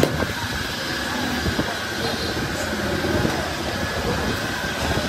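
Busy street noise with voices in the background: a steady din with a sharp knock at the start and a lighter one about a second and a half in.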